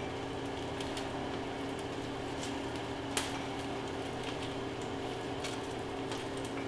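Basting brush dabbing olive oil onto a hot roast chicken, with scattered light clicks of the brush against the mug and the stainless roasting pan, one sharper click about three seconds in. Under it runs a steady appliance hum.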